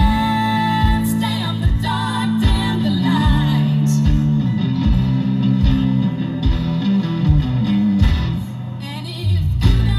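Live band playing amplified rock music with a woman singing lead over electric guitars, bass and a steady drum beat, the band briefly dropping back a little after eight seconds.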